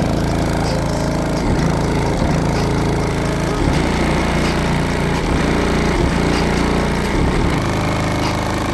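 Car-audio subwoofer bass from a single 15-inch Avatar STU subwoofer driven by an Orion 3000-watt amplifier, heard from outside the car's closed trunk. The bass music is loud, with deep notes that change every second or so and recurring short hits.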